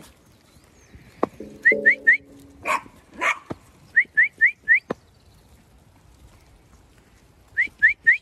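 Dog whining in short, high, rising squeaks, coming in quick runs of three or four, with a few sharp clicks in between.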